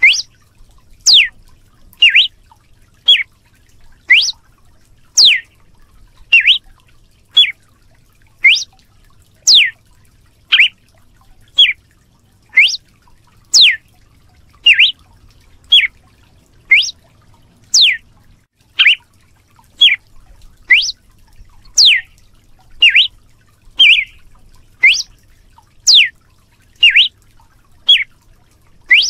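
Red-cowled cardinal (galo de campina) giving its whip call: sharp, loud notes about one a second, some sweeping quickly down in pitch and others shorter and lower, in an irregular alternation.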